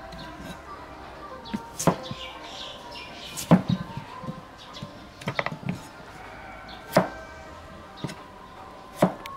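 A cleaver chopping a peeled potato on a round wooden chopping block: sharp knocks of the blade hitting the block, a second or two apart, with a quick run of several about halfway through.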